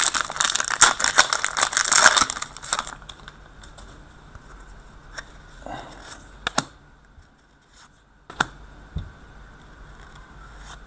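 A trading card pack's wrapper crinkling and tearing as it is ripped open, a dense crackling rustle for about three seconds, followed by a few soft clicks as the cards are handled.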